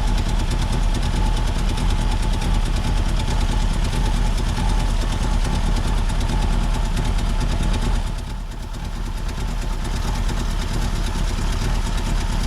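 Car engine running flat out with its gas pedal held down by a brick, being run until it blows while oil leaks out of it. It runs steadily, sags briefly about eight seconds in, then picks back up.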